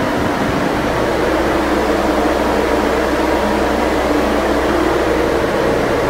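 Refrigerated truck body's evaporator unit running, its fans blowing a steady, even whir with a low hum underneath.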